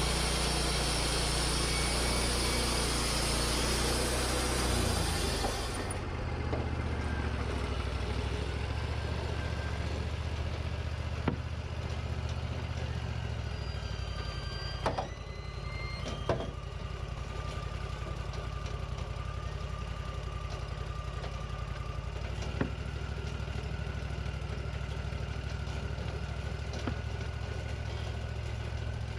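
Wood-Mizer LT40 portable band sawmill's engine running hard for about six seconds, then dropping back to a steady idle. A few sharp clanks come while it idles.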